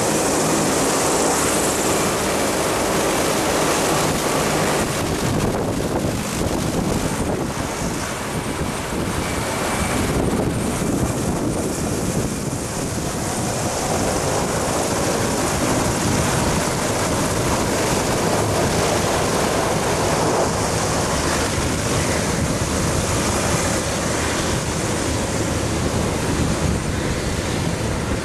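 Passenger hovercraft running its engines, lift fan and twin ducted propellers as it moves away across the concrete apron: a steady, loud rushing noise with a low engine hum beneath it in the first few seconds. Its propeller wash makes wind noise on the microphone.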